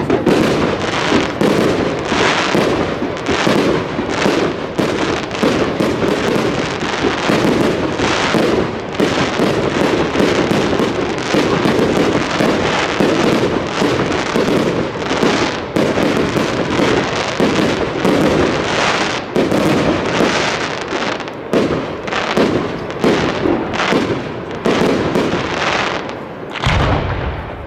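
Fireworks display: a dense, continuous barrage of bangs and crackle, many explosions overlapping with no pause.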